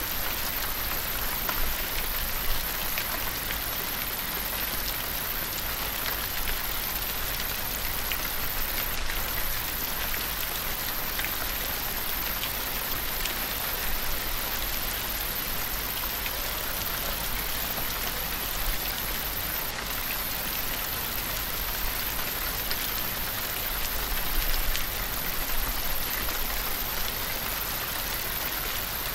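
Steady rain sound: an even hiss with scattered small drop ticks and a constant low rumble underneath, used as the cover track of a subliminal audio.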